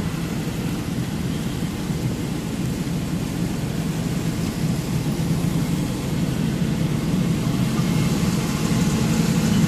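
Truck engine and road noise heard from inside the cab while driving: a steady low drone that grows slightly louder near the end.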